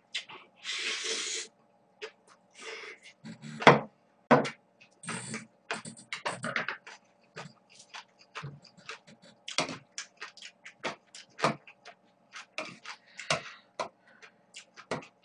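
A person eating noodles close to the microphone: a hissing slurp about a second in, then a run of wet chewing and mouth smacks with a few sharp clicks, over a faint steady hum.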